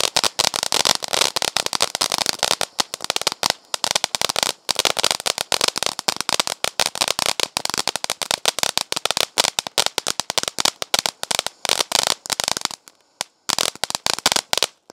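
Ground fountain firework throwing crackling stars: a dense run of fast, sharp crackling pops. Near the end there is a brief pause, then a last burst of crackles before it stops.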